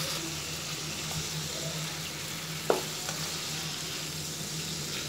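Prawns sizzling steadily as they shallow-fry in hot oil in a non-stick pan while being turned over, with one sharp clack, likely the spatula against the pan, about two and a half seconds in.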